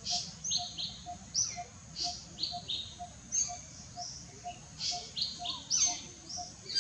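Birds chirping in short, high, repeated notes, over a lower single note that repeats evenly about twice a second.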